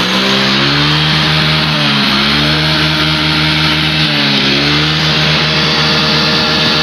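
Yamaha Mio J scooter's single-cylinder engine running, its revs rising and falling, with brief dips about two seconds in and again just past four seconds. It is running after the fuel pump IC has been replaced, with fuel pressure back at normal.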